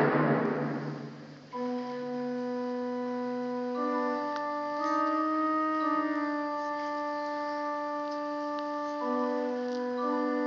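Live ensemble music: a loud passage dies away over the first second and a half. Soft, steady sustained chords follow, changing slowly every few seconds.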